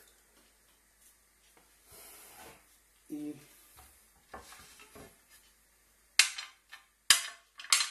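A cast grill plate is handled on a wooden table, with soft scraping and shifting. In the last two seconds come three sharp, ringing clacks of hard material striking the plate or table.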